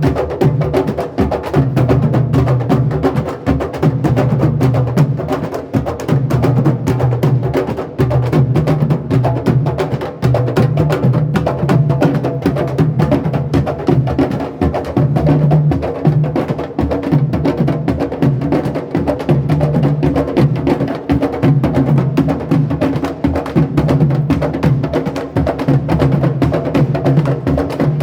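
Music: fast, dense clicking percussion over a bass line that changes note every second or two.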